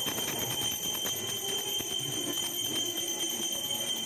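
Temple bell rung rapidly and continuously for the aarti of a Shiva lingam: a steady ringing with several high tones over a fast, even clatter of strokes.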